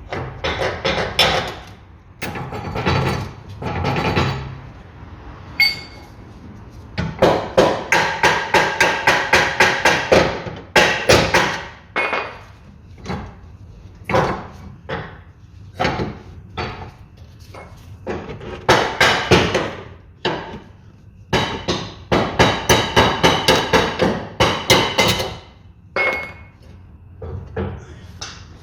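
Hammer blows on the steel lower suspension control arm of a Citroën C3, knocking it free of its mountings. Loud, sharp strikes with a metallic ring, in several runs of about five quick blows a second with pauses between.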